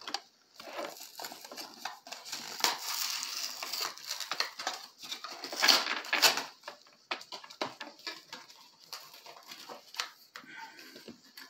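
A box of baseball cards being opened by hand: cardboard and plastic packaging rustling, crinkling and tearing in irregular bursts, loudest about six seconds in, with scattered taps and clicks.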